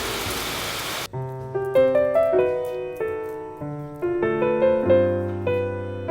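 Rain hiss under soft piano music for about a second, then the rain cuts off suddenly and the piano music carries on alone: gentle melodic notes over a low bass line.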